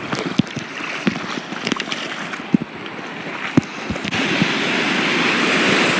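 Ocean surf washing around close to the microphone, with small splashes and knocks; about four seconds in a wave breaks and the rush of water swells louder.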